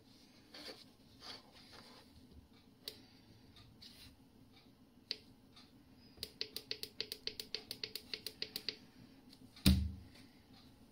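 Plastic clicks from an Alpha InTec 2 boiler's control panel buttons and dials as they are operated: a few single clicks, then a rapid even run of about eight clicks a second for two to three seconds. A louder single thump follows near the end.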